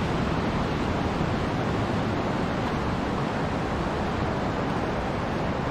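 Ocean surf and wind, a steady even rush with no single wave standing out.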